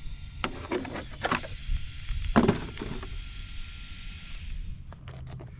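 Knocks and plastic clatter of an HPI Jumpshot Flux RC car being handled as its body shell comes off and the chassis is set down on gravel for a battery swap: a handful of short knocks, the loudest about halfway through.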